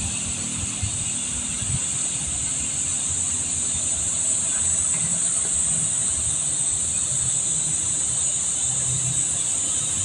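Insects droning in one steady high-pitched band, with an uneven low rumble underneath.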